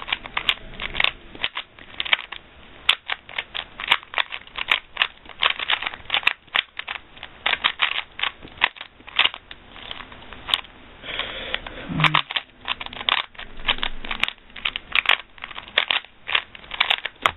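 Plastic Rubik's Cube being turned rapidly in a speedsolve: a fast, irregular run of clicking and clacking as the layers snap round, several turns a second.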